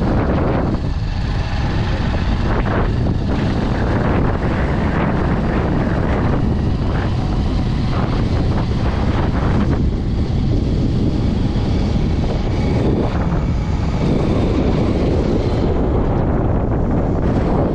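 Wind buffeting the camera microphone: a loud, steady low rumble that swells and eases in gusts.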